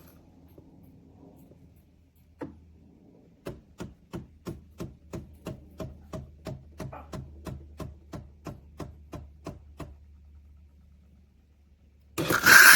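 Philips 3300 fully automatic espresso machine at work: a low hum, a single click, then a run of regular clicks about three a second for some six seconds. Near the end a loud whirring mechanical noise starts.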